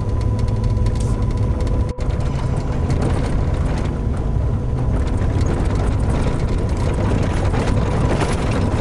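A motor vehicle running steadily with a deep rumble and rattling, as when riding in it, with a brief cut about two seconds in.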